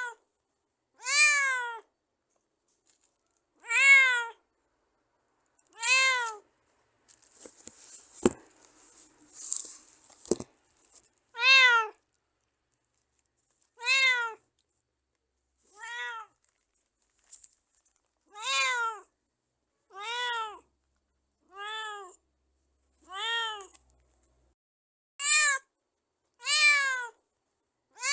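A domestic cat meowing over and over: about a dozen short meows, each rising then falling in pitch, one every one to two seconds. Around seven to eleven seconds in the meows pause, and there is faint rustling and two sharp clicks.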